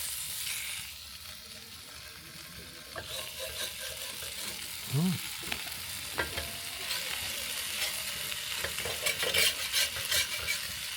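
Sausages frying on a gas cooker: a steady sizzle with fat crackling and spitting, busier in the second half.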